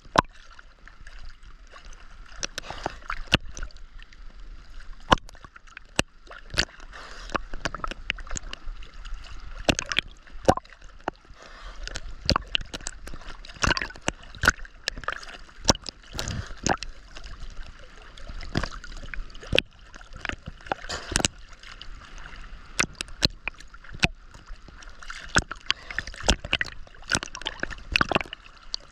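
Seawater splashing and sloshing close by as someone swims, with frequent irregular splashes over a steady gurgling wash.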